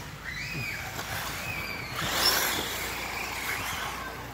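Radio-controlled off-road race buggies running, their motors giving high whines that rise and fall in pitch with the throttle, loudest about two seconds in.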